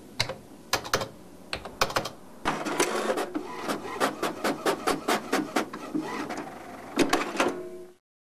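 A few separate computer keyboard keystrokes, then a desktop inkjet printer running for about five seconds as it prints a form, its rhythmic mechanical strokes coming in quick succession before stopping suddenly.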